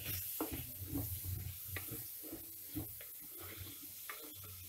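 Wooden spatula stirring and scraping chopped tomatoes and onions around a pot, in irregular strokes a few times a second, over a light sizzle from the frying.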